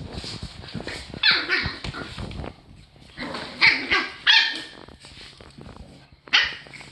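A Boston terrier puppy and a young dog playing rough, with several sharp, high-pitched barks: the loudest come about a second in, around four seconds in, and near the end.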